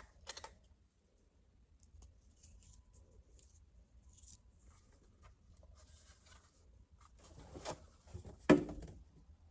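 Faint scratching and rustling of hands handling small objects, then two sharp knocks near the end, the second the loudest.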